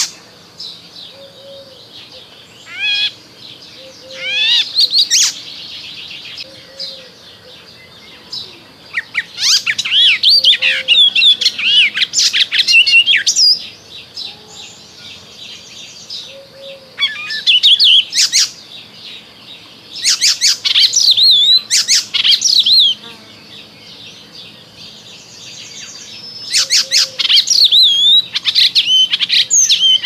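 Eastern olivaceous warbler singing: bursts of fast, scratchy, chattering warbling lasting a few seconds each, with short pauses between them and only brief single phrases in the first few seconds.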